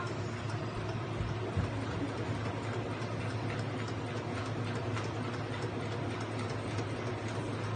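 Electric sewing machine running steadily, its needle stitching through a paper practice sheet: a fast, even ticking over the motor's low hum.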